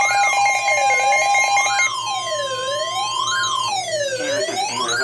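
Electronic emergency alert tone: a siren-like wail rising and falling about every second and a half, over a steady two-tone signal with a fast pulsing tone that cuts off about two seconds in, the attention signal before the next flood warning is read.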